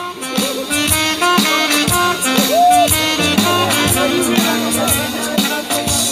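Instrumental break of a song played loudly through stage loudspeakers, with a steady beat and short repeated melodic notes.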